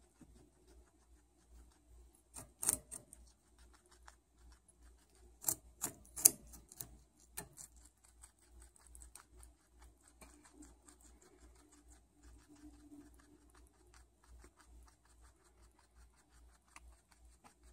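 A guinea pig chewing a raw carrot: a steady run of small, fast crunches, with louder clusters of crunching bites about two and a half seconds in and again around six to seven seconds in.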